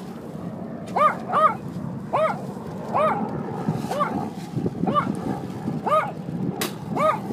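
Small dog yapping in a string of about eight short, high barks, roughly one a second, starting about a second in.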